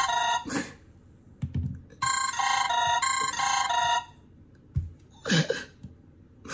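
Telephone ringing as a call goes out: a warbling two-tone ring in bursts about two seconds long, one ending about half a second in and a full ring from about two to four seconds. A brief vocal sound follows at about five seconds.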